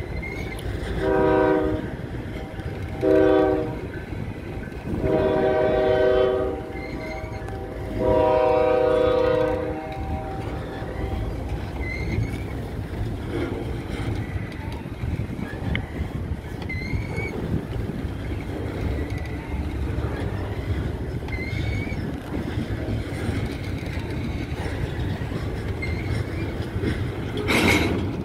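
Double-stack container train rolling past, its cars rumbling steadily on the rails. A multi-chime locomotive horn sounds two short blasts and then two long ones in the first ten seconds. After that comes the cars' steady rumble with faint intermittent squeaks, and a brief loud clatter just before the end.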